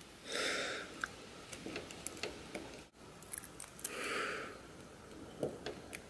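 Small scattered clicks and scrapes of a 3D-printed plastic lock pick being worked in a door lock. Two soft hisses, about half a second each, come near the start and about four seconds in, and these are the loudest sounds.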